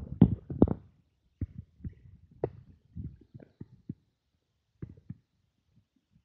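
Drifting river ice floes knocking and grinding against one another during an ice run: a dense crunching in the first second, then scattered short knocks and clinks.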